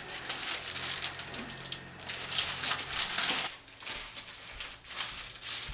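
Paper wrapping rustling and crinkling in irregular bursts as a long package is unwrapped by hand.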